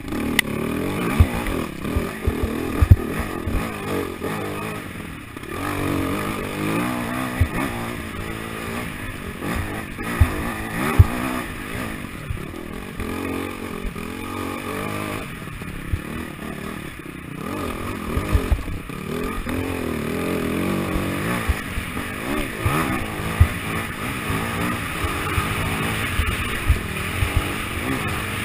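AJP SPR 310 enduro bike's single-cylinder engine, its pitch rising and falling as the throttle opens and closes while it is ridden over rough ground, with many short sharp knocks from the bumps.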